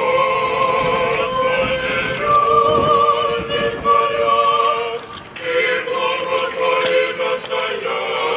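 Small women's choir singing an Orthodox liturgical chant in long held notes, with a brief break about five seconds in before the singing resumes.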